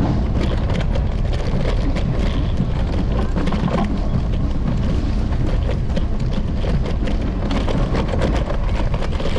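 Steady wind rush and road rumble from an electric scooter ride, picked up by a camera on the handlebars, with many small knocks and rattles from the pavement throughout.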